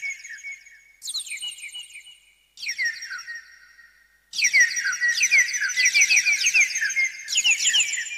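Electronic sound-effect tone from a Casio CT-X700 keyboard: trills of quick falling chirps. They come as three short notes about one and a half seconds apart, then run on unbroken and thicker from about four seconds in.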